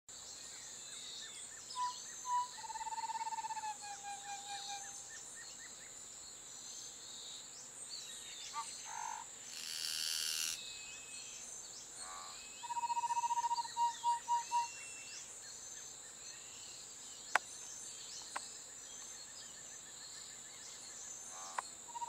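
Niceforo's Wren singing its low, hollow song in two bouts: single notes run into a fast even trill and then a few spaced notes, first a few seconds in and again past the middle. A steady high insect-like drone sits underneath, and a brief rush of noise falls between the bouts.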